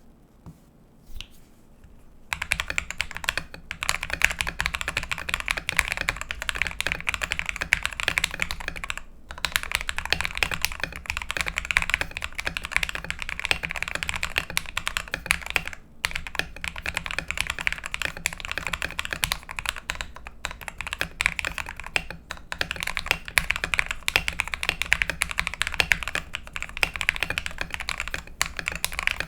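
Fast continuous typing on a GamaKay LK67 mechanical keyboard with lubed Akko Matcha linear switches, XDA keycaps and a tape mod, its key strikes on the higher-pitched side. A couple of lone keypresses come first, then steady typing with a few brief pauses.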